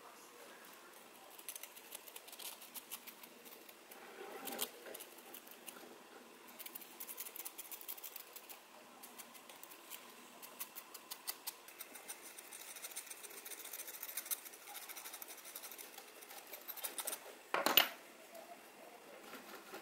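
A thin metal pick scraping old glue from a small speaker driver's ribbed surround, making a long run of fine, fast scratchy ticks. There are softer handling sounds in the first few seconds and one sharp knock shortly before the end.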